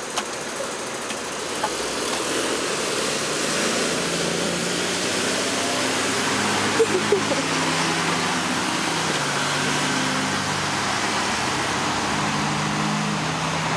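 An engine running steadily under a broad rushing hiss. The noise grows slightly louder over the first few seconds, and its low hum shifts in pitch in steps.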